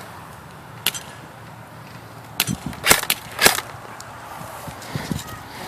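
Airsoft guns firing: a handful of sharp single cracks at uneven spacing, the loudest clustered in the middle.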